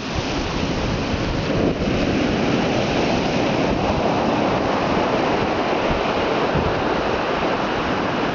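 Black Sea surf breaking and washing onto the shore in a steady loud rush, with wind buffeting the microphone.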